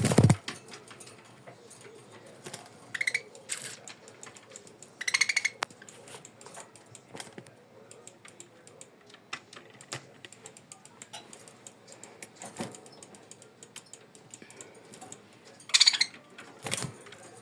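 A budgerigar giving three short chirps, about three seconds in, about five seconds in and near the end, among scattered light clicks and taps. A sharp knock comes at the very start.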